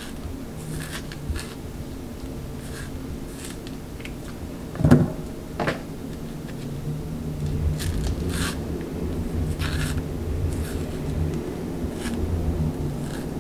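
Bananas being peeled by hand: soft tearing and rustling of the peel, with a louder soft knock about five seconds in as a peeled banana is set down in a ceramic bowl. A steady low hum runs underneath.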